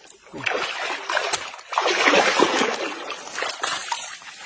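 Heavy, irregular water splashing as a large hooked trairão (wolf fish) thrashes at the surface while being pulled toward shore, loudest in the middle.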